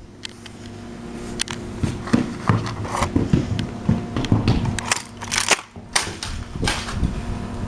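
A crowbar striking a plastic airsoft gun stock: a series of sharp cracking blows at irregular intervals, with a steady low hum beneath.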